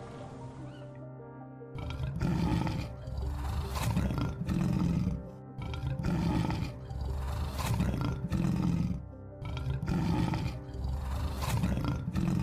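Lion roaring over background music. After about two seconds of music alone, it gives a long series of deep roars, about one a second.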